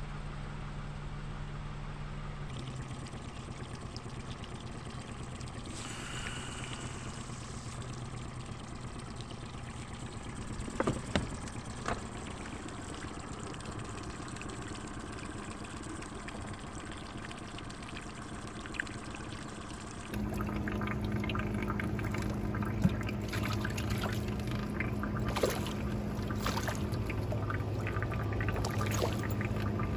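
Small Mercury 9.9 hp outboard motor running steadily with water washing past the hull. About twenty seconds in the sound changes: the motor keeps running under the splashing of hooked white bass thrashing at the surface.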